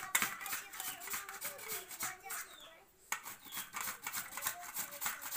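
Potato being grated on a flat metal hand grater over a steel plate: repeated short rasping strokes, about three a second, with voices talking in the background.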